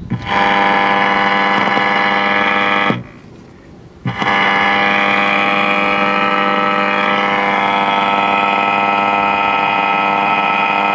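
Zenith farm radio's speaker putting out a loud, steady buzzing hum, which cuts out abruptly about three seconds in and comes back a second later. The hum comes from the tube filaments being run on 6.3 V AC instead of DC.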